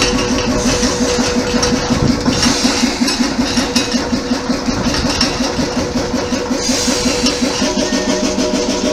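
Small diesel shunting locomotive's engine idling with a rapid, even beat.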